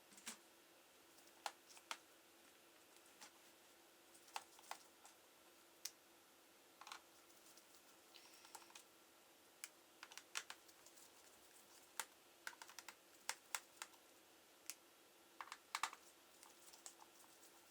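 Scattered light clicks and taps from a laptop being worked on, irregular and in small clusters, over a faint steady hum.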